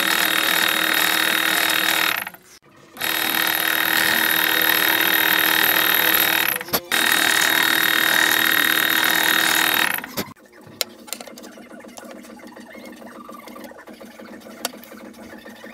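Benchtop drill press running, its twist bit drilling holes through a cleaver's steel tang and wooden handle scales, with a steady whine; it drops out briefly twice. About ten seconds in it stops, leaving a low background with a few faint clicks.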